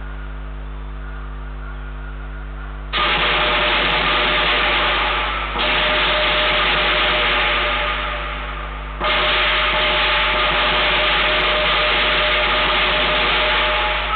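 Lion dance percussion, crashing cymbals with drum and gong, comes in loudly about three seconds in, easing off and surging again twice; before it only a steady hum.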